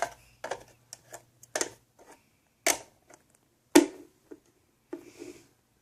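A string of irregular sharp clicks and taps, about one every second, with fainter ticks in between; the loudest comes a little under four seconds in.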